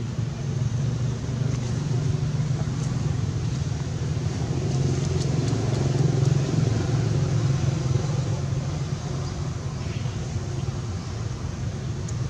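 Steady low rumble of a motor vehicle's engine, swelling to its loudest about halfway through and then easing off.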